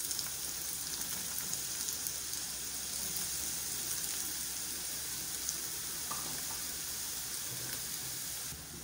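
Freshly added chopped onion frying in hot oil in a non-stick kadhai: a steady sizzling hiss with faint crackles, easing slightly near the end.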